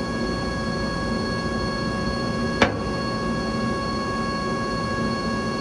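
Steady machinery drone with several steady high whining tones, and a single sharp click about two and a half seconds in.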